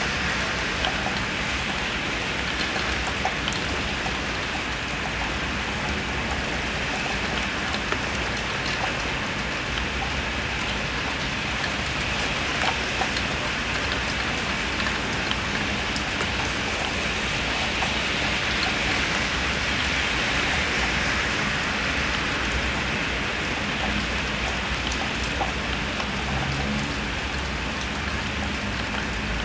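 Heavy rain falling steadily, with a constant hiss of rain and scattered drops hitting nearby surfaces, heard from indoors through a window.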